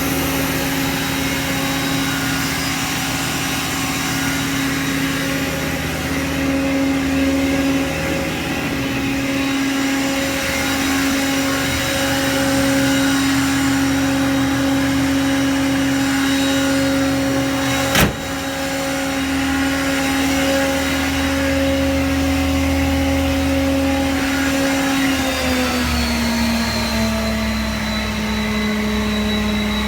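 Truck engine running a PTO-driven Vanair air compressor, a steady mechanical hum. A single sharp click comes about 18 s in. Around 25 s the hum drops slightly in pitch and settles there.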